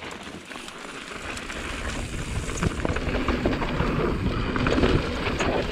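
Mountain bike rolling downhill on dirt and gravel and onto a wooden boardwalk: tyre rumble and wind noise on the microphone, growing louder over the first couple of seconds as speed builds, with scattered knocks and rattles.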